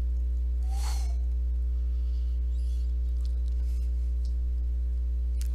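Steady electrical mains hum in the recording, a low buzz with a ladder of higher overtones, unbroken throughout. A short hiss comes about a second in.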